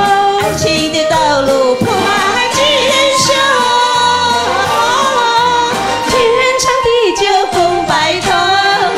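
Two women singing a Chinese pop duet into microphones over instrumental accompaniment, with long held and gliding notes.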